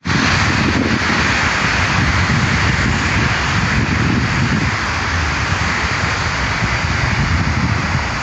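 Wind rumbling unevenly on the microphone over a steady hiss of distant city traffic.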